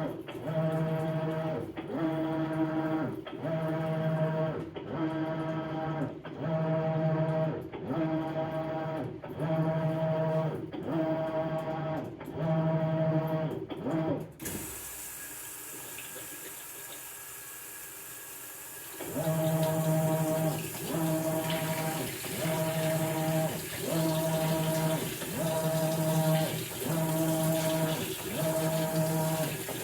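Maytag Bravos XL top-load washer on a bedding cycle: the drive motor hums in even back-and-forth agitation strokes, about one every second. About halfway through, water starts pouring into the tub and the strokes stop for a few seconds, then agitation resumes while the water keeps filling.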